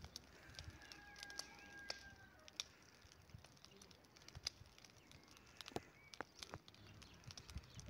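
Faint wood fire in a large outdoor fireplace, crackling with scattered sharp pops. A faint steady whistle-like tone is held for about two seconds near the start.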